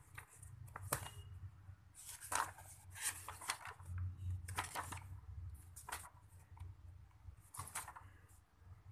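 Pages of a paperback textbook being turned by hand: a run of brief, irregular paper flaps and rustles as the leaves are flipped over.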